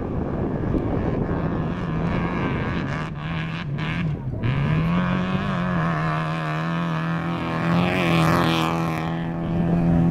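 Opel Corsa rally car's engine driving hard through a gravel corner, at first mixed with a rough rush of gravel and wind. The revs dip and waver briefly a few times, then climb and hold high and steady as the car accelerates past, loudest near the end.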